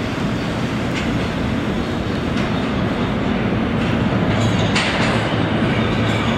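Kawasaki R211T subway train approaching through the station tunnel: a steady low rumble of wheels on rails that grows a little louder as it nears, with a few sharp clicks from the wheels on the track.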